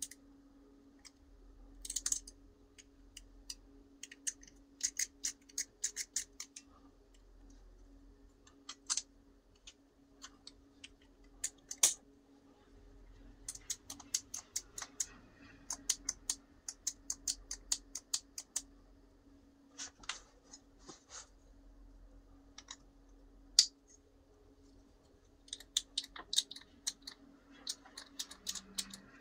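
Small steel coil spring and 3D-printed plastic parts handled between the fingers: scattered runs of light clicks and ticks as the spring is worked into the part, over a faint steady low hum.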